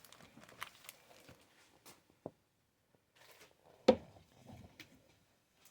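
Faint handling noise of paper and plastic-sleeved craft supplies: light rustles and small clicks, with one sharp tap about four seconds in as an item is set down or knocked.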